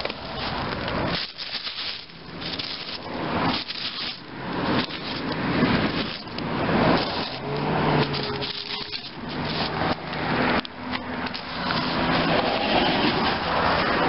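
Handling noise from a hand-held camera's microphone: a rough rubbing and rustling that swells and fades irregularly as the camera is gripped and moved.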